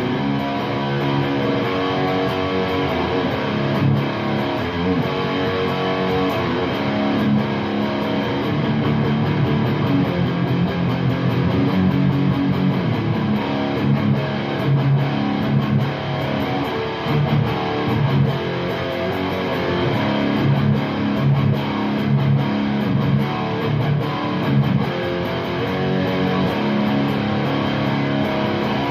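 Electric guitar played through the dirty, distorted channel of an Orange Super Crush 100 guitar amplifier: a continuous run of notes and chords.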